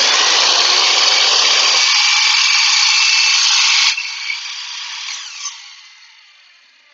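WEN 10-inch sliding miter saw with its stock 40-tooth blade running at full speed and brought down through a wooden board. The motor is switched off about four seconds in, and the blade winds down and fades away.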